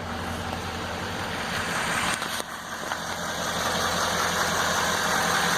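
2015 GMC Sierra 3500HD's 6.6-litre Duramax V8 turbo-diesel idling steadily.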